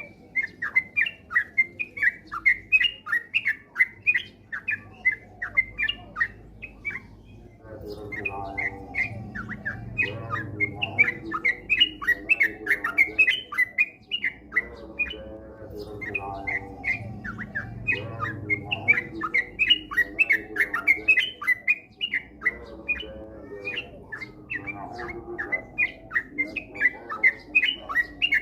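Yellow-vented bulbul singing a fast, unbroken run of short chirps. From about eight seconds in, a lower, rougher chatter rises and falls underneath it in waves.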